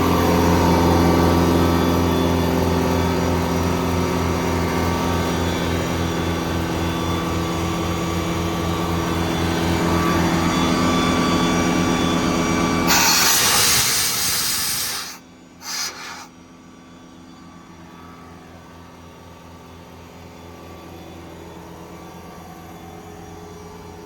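A Boss hydraulic-driven air compressor running with the truck's diesel engine pulling it. About 13 seconds in there is a loud rush of air lasting about two seconds. The running then cuts off suddenly, with one short burst, leaving a much quieter steady hum.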